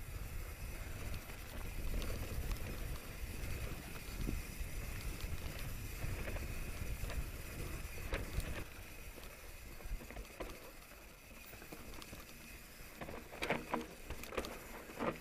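Mountain bike riding downhill over grass: wind rumble on the camera microphone and tyre noise, with scattered clicks and rattles from the bike and a steady high buzz. Near the end there is a run of sharper knocks and rattles as the bike comes onto a rougher wooded trail.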